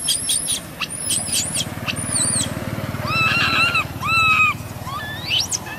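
Infant long-tailed macaque crying: a rapid series of short, high-pitched squeals, each rising and falling in pitch, with a few lower, louder cries about three to four and a half seconds in.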